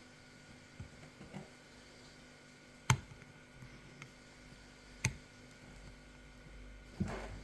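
Lock pick working the pin stacks of a pump lock held under a wire tensioner: faint scraping with a few sharp metallic clicks, the loudest about three and five seconds in, and a short handling rustle near the end.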